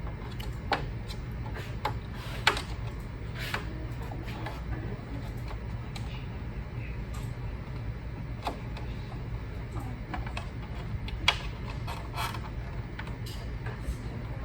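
Scattered light clicks and knocks from handling a carpet sweeper's frame and feeding motor cable connectors through it, with two sharper knocks, one a couple of seconds in and one near the end, over a steady low hum.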